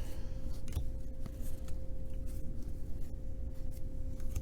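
Trading cards being flipped through by hand, with faint irregular slides and light ticks of card on card over a steady faint hum.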